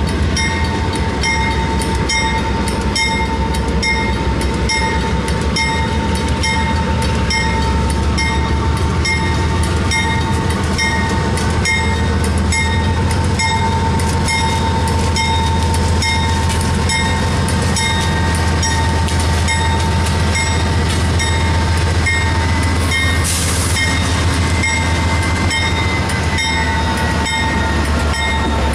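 Union Pacific GE diesel-electric locomotives rumbling slowly past at a grade crossing. A crossing bell dings steadily about twice a second, with a brief hiss about 23 seconds in and faint wheel squeal near the end.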